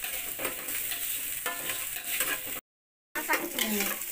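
Metal spatula stirring and scraping diced mixed vegetables around a wok, over the hiss of food frying in oil, with irregular clinks and scrapes. The sound cuts out completely for about half a second a little past halfway.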